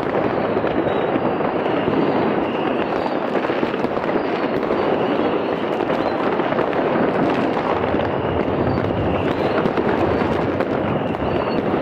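Massed fireworks and firecrackers going off all at once in a dense, unbroken crackle and banging, with faint high whistles wavering over it.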